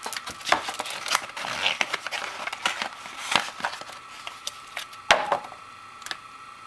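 Packaging being handled and pulled apart by hand: irregular crinkling with sharp clicks and snaps, busy for about five seconds, then dying down to a few scattered ticks.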